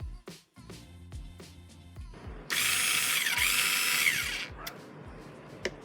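Small cordless screwdriver motor running for about two seconds, starting and stopping abruptly, its whir dipping and rising in pitch as the speed changes. A sharp click follows near the end.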